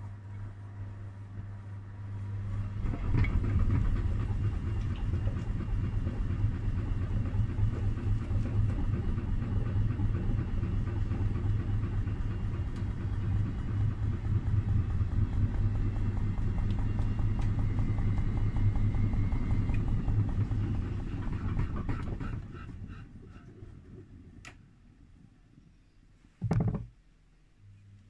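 Miele Softronic W3523 washing machine, overloaded with a winter blanket, running its drum: a steady low hum, then a loud churning rumble starts a couple of seconds in and runs for about twenty seconds before dying away. A single short knock sounds near the end.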